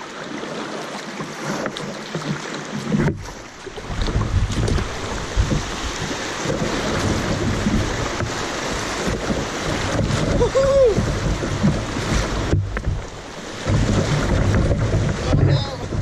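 Shallow river riffle rushing and splashing around a kayak's hull as it runs through the rapids. Wind buffets the microphone in uneven low rumbles.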